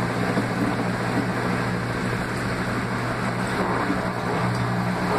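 The Laundry Alternative super-compact automatic washer in its intermediate spin cycle: the drum spinning, giving a steady motor hum with a low, even tone under a whirring hiss.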